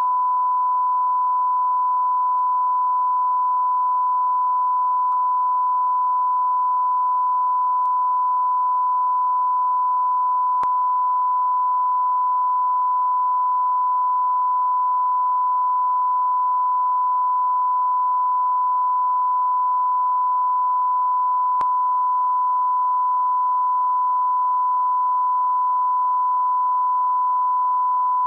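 1 kHz line-up reference tone, the standard 'bars and tone' test signal at the head of a programme. It is one unbroken pure beep at a constant level, used for calibrating audio levels.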